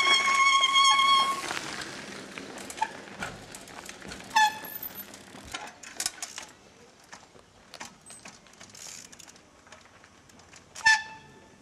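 Trial bike hopping and landing: sharp knocks of the tyres on concrete and ground, with the brakes squealing loudly three times, one long squeal at the start and short ones about four seconds in and near the end.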